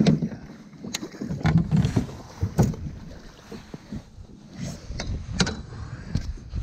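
Sharp knocks and clunks of gear and a landing net against a plastic fishing kayak's hull, about five in all, as a largemouth bass is netted and lifted aboard.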